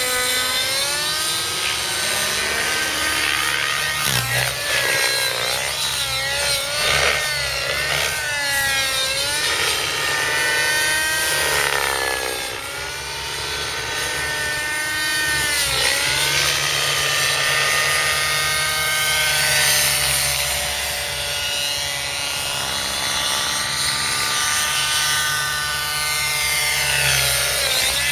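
Velocity 50 nitro radio-control helicopter flying hard: the glow engine and rotor whine rise and fall in pitch over and over as it is thrown through manoeuvres.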